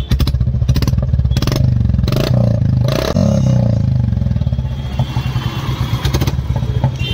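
Royal Enfield Bullet 350's single-cylinder engine idling with a thumping exhaust note through a chrome aftermarket silencer. The rider blips the throttle several times in the first three seconds, then it settles back to a steady idle.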